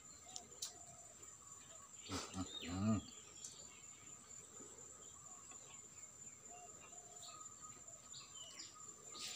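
Faint outdoor ambience: a steady high-pitched insect drone with scattered faint bird chirps. About two seconds in comes a brief pitched vocal sound, the loudest moment.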